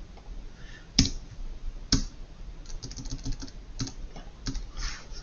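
Keystrokes on a computer keyboard: two separate key presses about a second apart, then a quick run of typing and a few more scattered strokes.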